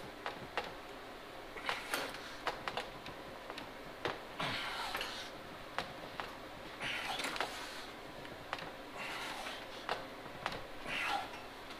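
Steel rocker patch panel clamped in a vise being bent by hand: scattered light clicks and ticks of the metal and clamp, with a few short scraping rustles as the gloved hands push on it.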